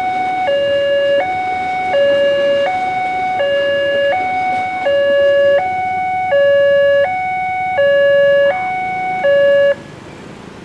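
Railway level-crossing warning alarm sounding its two-tone electronic ding-dong, switching between a higher and a lower pitch about every half second, over the rumble of a passing train. The alarm cuts off suddenly near the end.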